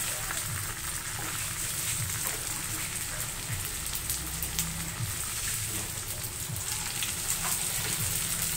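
Spring rolls frying in hot oil in a pan: a steady sizzle with many small crackles and pops.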